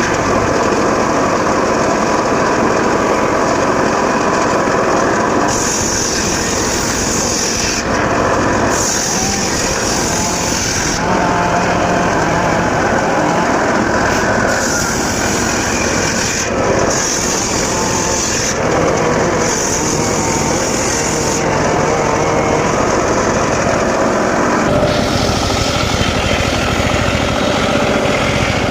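Engine-driven circular saw running steadily while cutting mahogany. A higher, hissing cutting sound comes and goes in stretches of about two seconds as the blade works through the wood.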